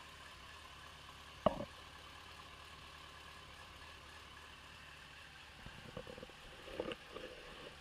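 Yamaha FZ6 Fazer S2's inline-four engine idling steadily, recorded to show a knock in the engine. A single sharp thump stands out about a second and a half in, and a few irregular louder knocks come near the end.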